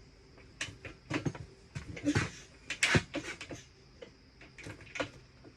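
A few scattered knocks, clunks and scuffs from handling the two-stroke dirt bike, with no engine running.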